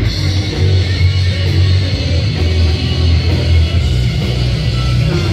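Loud rock music with guitar over a heavy, steady bass line.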